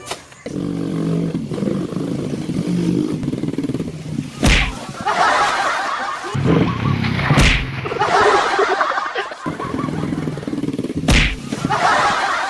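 Three loud, sharp whacks, about three seconds apart, with rustling and clattering between them.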